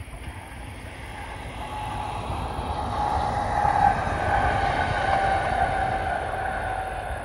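Diesel locomotive running light engine past, its engine rumble and a steady whine rising to a peak about four seconds in, then easing slightly as it moves away.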